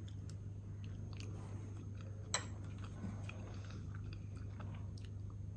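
Faint mouth sounds of a person eating a spoonful of oats porridge: soft chewing with small scattered clicks and one sharper click a little over two seconds in, over a steady low hum.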